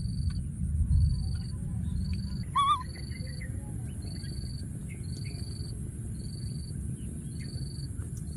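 A baby macaque gives one short, wavering squeak call about two and a half seconds in. Around it a high chirp repeats evenly about every two-thirds of a second, over a faint steady high whine. In the first two and a half seconds a low rumbling noise is the loudest sound.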